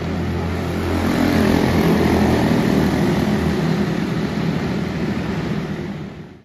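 Quarter midget race cars' Briggs & Stratton Animal single-cylinder engines running on track, a steady drone that swells a little about a second in and cuts off abruptly near the end.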